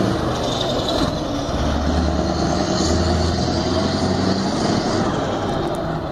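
Scania 530 truck's V8 diesel engine driving past and pulling away, a loud, steady, deep engine and exhaust drone that eases slightly about a second in and swells again.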